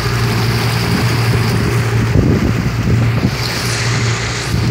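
Motorboat under way: its engine drones steadily under wind buffeting the microphone, with water rushing and slapping against the hull, choppier around the middle.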